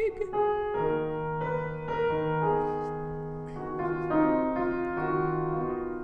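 Piano playing a slow accompaniment between sung phrases: notes and chords struck one after another, each ringing on.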